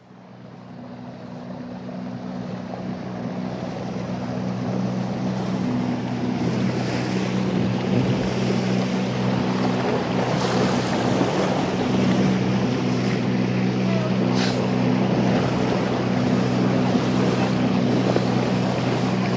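Small motorboat's engine running steadily with a constant low hum, with water rushing along the hull and wind on the microphone. The sound swells up over the first few seconds.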